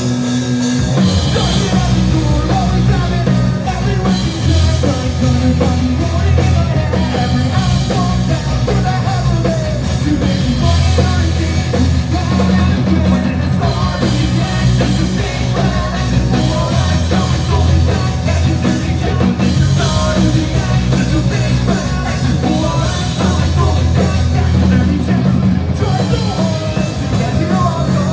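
Pop-punk band playing a fast song live: electric guitars, bass and drums, with singing, starting at full volume at the opening.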